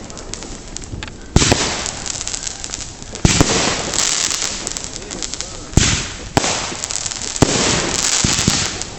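Consumer fireworks going off in a rapid series: about five sharp bangs, each followed by a crackling, hissing tail.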